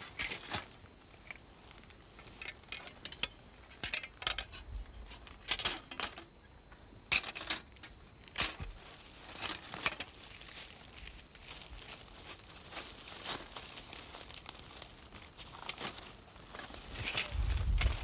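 Iron harvest sickles clinking and knocking together as they are gathered into a pile, with dry wheat straw rustling and crackling as it is bound around them. The clicks come irregularly throughout.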